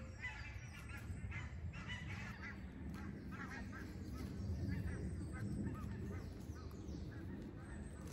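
A flock of geese honking, many short calls overlapping one another, over a steady low rumble.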